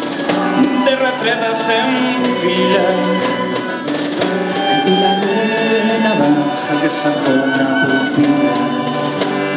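Instrumental interlude of a live folk song: acoustic guitar, violin and a woodwind playing the melody over an instrumental ensemble, with a few light percussion hits.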